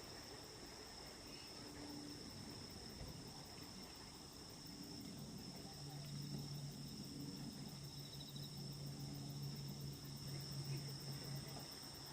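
Autumn night insects, crickets, chirping steadily at a high pitch. A low steady hum joins a little before halfway through.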